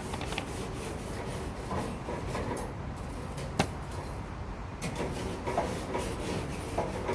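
A barbecue grill being scrubbed clean: repeated scraping and rubbing strokes with scattered small clicks and knocks, and one sharp click about three and a half seconds in.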